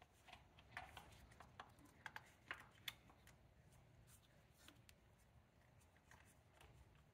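Faint, scattered clicks and light taps of parts being handled by hand in a car's engine bay, bunched in the first few seconds, over near-silent room tone.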